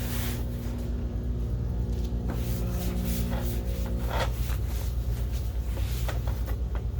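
Plastic projector housing being turned over and handled on a workbench: a few scrapes and light knocks over a steady low hum.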